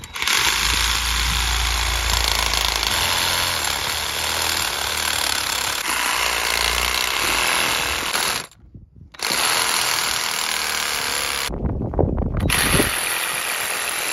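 Porter-Cable Tiger Saw reciprocating saw cutting metal inside a boat's old stern tube (shaft log), running steadily. It stops twice, briefly about eight and a half seconds in and for about a second near the end, with a few knocks in the second pause.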